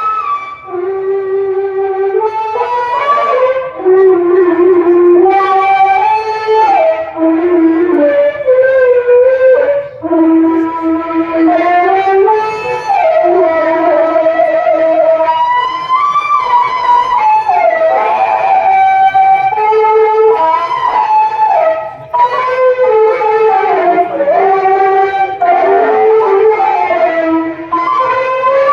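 Qaswida music: a single melody of long, sliding, ornamented notes, with brief breaks between phrases.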